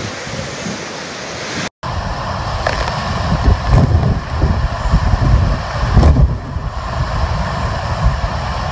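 Hurricane-force wind buffeting the microphone in gusts, a loud, fluctuating rumble over a rushing roar. The sound cuts out for an instant about two seconds in, then the gusts come back harder.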